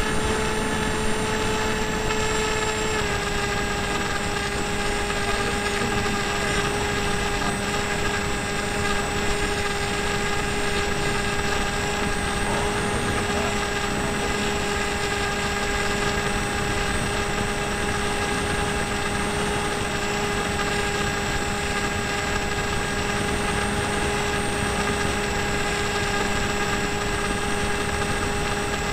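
Electric motor and propeller of an AXN FPV model plane running in flight: a steady whine over a rush of noise, dropping a little in pitch about three seconds in as the throttle eases back.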